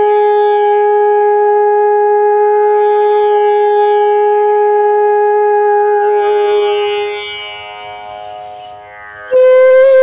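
Bamboo bansuri flute holding one long, steady low note that fades away from about seven seconds in. Just before the end a new, higher note starts abruptly.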